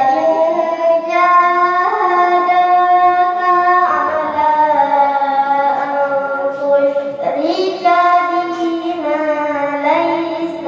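A young voice chanting in the melodic sari tilawah style, Quran recitation with a sung verse translation: long held notes that step and glide between pitches, with a short break about seven seconds in.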